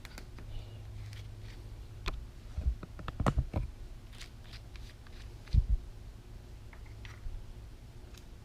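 Small clicks, rattles and knocks of a plastic and metal drink-holder perch mount being handled and slid into place on a motorcycle handlebar, with a quick run of knocks about two to three and a half seconds in and one louder knock about five and a half seconds in, over a low steady hum.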